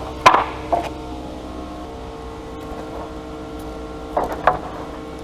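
Wooden planks knocking against each other as boards are handled on a timber rack: one sharp knock about a third of a second in, a fainter one shortly after, and a few quick knocks near the end, over a steady machine hum.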